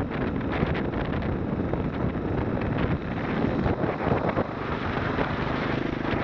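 Single-cylinder Briggs & Stratton 5 hp lawnmower engine driving a homemade motorized bicycle under way, mixed with heavy wind noise on the microphone. The engine note settles into a steadier hum near the end.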